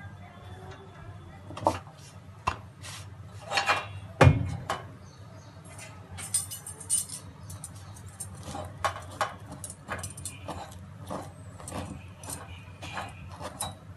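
Scattered clicks and light knocks of a roti being cooked on an iron tawa and turned over a gas burner, over a steady low hum. The loudest is a single thump about four seconds in.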